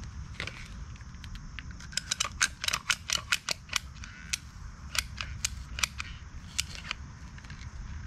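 Caulking gun clicking in quick, irregular runs as its trigger is squeezed, pushing Quikrete mortar repair out of the tube.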